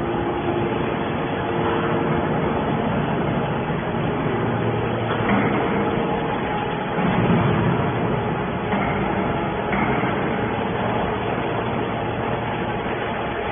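Mini hydraulic can baler running: a steady mechanical hum and noise, with a few brief louder moments along the way.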